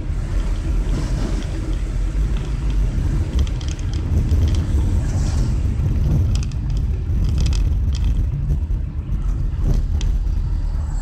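Car driving on a wet road, heard from inside the cabin: a steady low rumble from the engine and road, with the hiss of tyres on wet pavement and a few short sharp noises.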